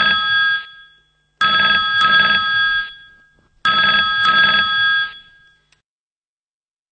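A telephone ringing with an incoming call: the same electronic ring comes three times, about two seconds apart, then stops about five seconds in.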